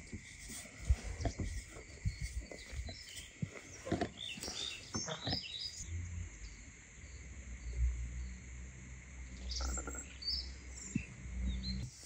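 Wooden rolling pin working dough on a wooden board, with scattered light knocks and clicks as it meets the board. Small birds chirp in the background, and a low hum comes in about halfway through.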